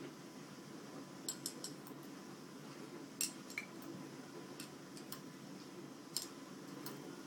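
Small metal parts of an OMVL Reg Fast CNG injector rail, the steel plungers and pin bracket, clinking and tapping against each other as they are handled: about a dozen light, sharp clicks at irregular intervals, the loudest about three seconds in, over a steady low hum.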